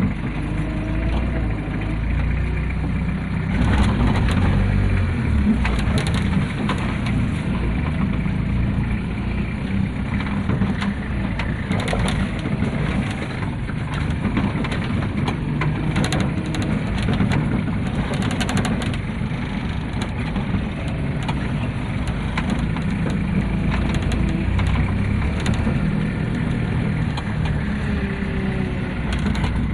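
A vehicle engine running steadily, with scattered knocks and rattles as it travels over a rough road.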